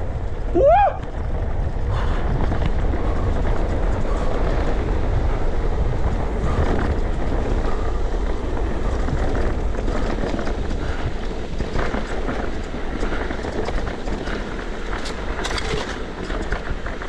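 Mountain bike descending a dirt trail: wind buffeting the camera microphone over the rumble of the tyres on dirt, with scattered clicks and rattles from the bike. A brief squeal rises and falls in pitch in the first second.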